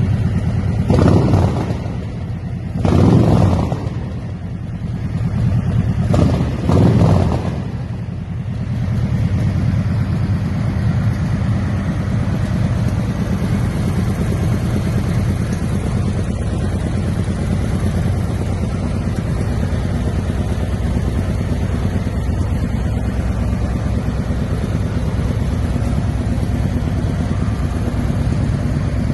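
Harley-Davidson Street Glide Special's 122 cubic-inch Screamin' Eagle Stage 3 V-twin, breathing through Vance & Hines Dresser Duals with 450 Monster Rounds mufflers, revved in three short blips in the first eight seconds, then settling to a steady, loping idle.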